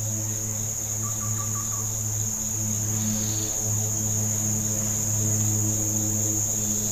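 Continuous high-pitched droning of insects from the riverside forest, over a low steady hum. A few faint short chirps come about a second in.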